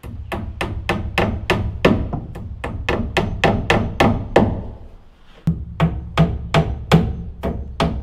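Claw hammer striking nails up into wooden ceiling framing, a quick steady run of blows about three a second with a short pause a little past halfway, over background music.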